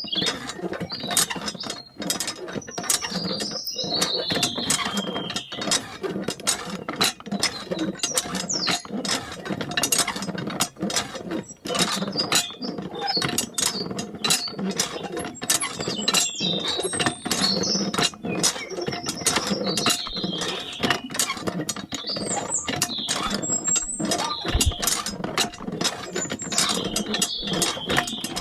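Small plastic gears and moving parts of a miniature model tractor clattering with rapid irregular clicks, with short high squeaks every few seconds.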